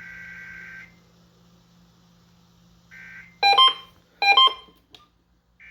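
Emergency Alert System digital data bursts: the buzzy two-tone SAME code, a longer burst ending just under a second in and short bursts about three seconds in and near the end. Between them come two loud electronic beeps, under a second apart.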